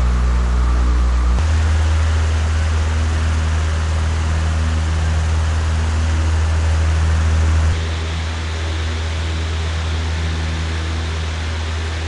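Electric stand fans running, heard one after another. A three-blade fan's lower whoosh and hum gives way about a second in to a four-blade Shinil fan. About eight seconds in, a five-blade Hanil fan takes over with less low hum and a higher, hissier sound: more blades give a higher-pitched fan noise.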